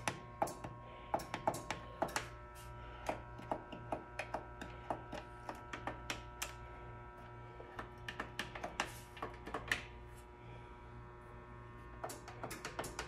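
Espresso machine running just after being switched on: a steady low hum with several faint steady tones over it, and irregular sharp clicks, about two or three a second, that let up briefly about ten seconds in.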